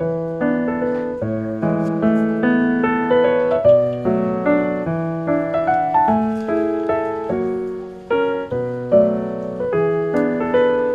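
Background piano music: a steady run of notes, each fading after it is struck.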